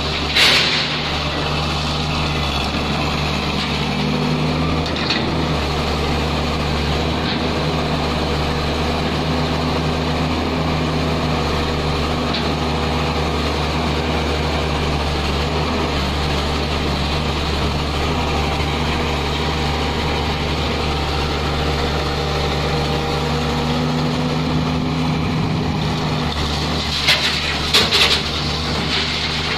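Heavy excavator's diesel engine running steadily under work, with a few short, sharp clanks just after the start and again near the end.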